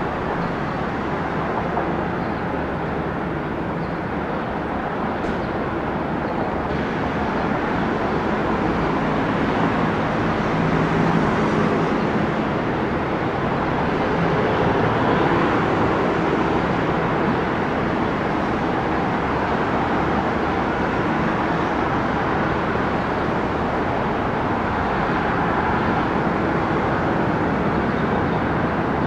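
Aircraft engine noise: a steady noise that swells for a few seconds in the middle, then holds strong.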